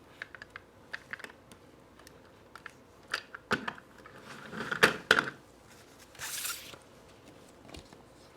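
Hands working on a small die-cast toy truck and its sticker sheet: scattered light clicks and taps, a cluster of louder knocks in the middle, then a short papery rustle.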